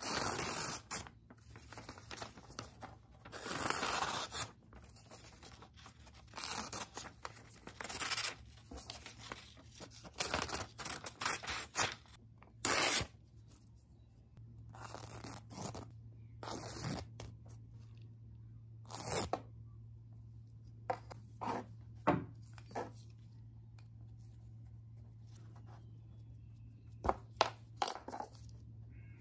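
Irregular short scraping and rubbing strokes, some with a tearing sound, come thick through the first half, then thin out to a few sharp clicks and taps. A faint low hum comes in about halfway.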